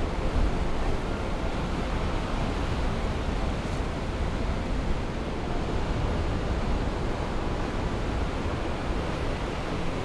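Ocean surf breaking on a sandy, rocky beach: a steady, unbroken wash of noise, with wind rumbling on the microphone.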